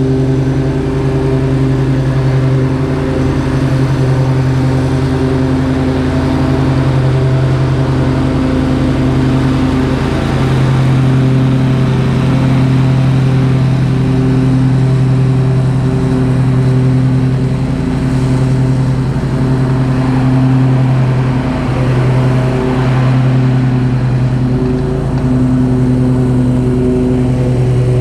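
An engine running steadily at a constant speed, loud and close, with a droning even pitch that doesn't change throughout.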